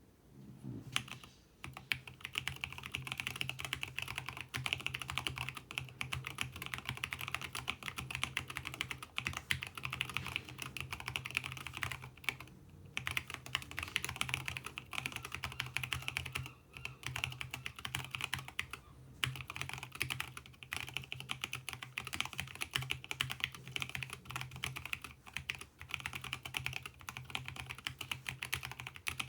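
Continuous fast typing on a custom mechanical keyboard with lubed JWICK Black linear switches and MT3 keycaps, its case dampened with foam: a dense run of key clacks, broken by a few short pauses.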